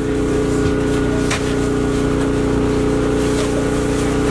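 A steady engine drone running at an even speed, with a single short click about a second and a third in.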